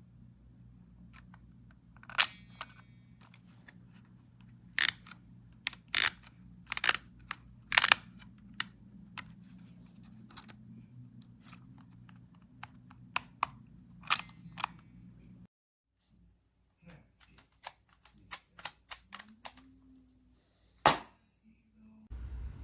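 A compact film camera being handled and clicked: a series of sharp, separate clicks, loudest near 21 seconds, with many fainter clicks in between. Under them runs a low hum that stops suddenly about two thirds of the way in.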